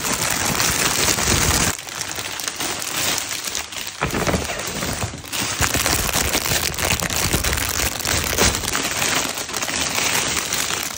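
Gift wrapping crinkling and rustling continuously as a present is unpacked by hand, with brief lulls about two and four seconds in.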